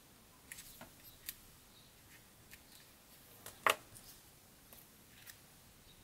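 Light, scattered clicks and taps of metal tweezers handling small paper butterflies on a card. A sharper tap comes about two-thirds of the way in, as the tweezers are laid down on the wooden tabletop.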